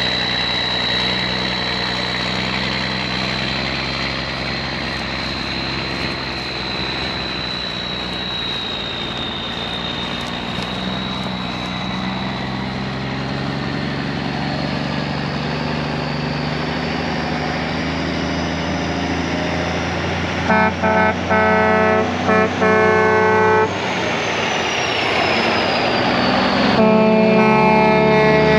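1480 combine running steadily with a high whine while cutting wheat. About 20 seconds in, a horn sounds in a quick series of short honks, and again near the end in longer blasts.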